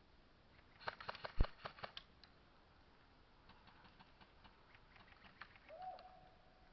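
A quick run of sharp clicks and knocks, with one much louder knock among them, then fainter scattered clicks and a brief faint tone near the end.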